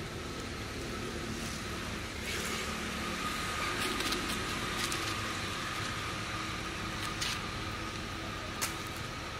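Steady outdoor background noise with a thin steady whine, broken by a few short crackles.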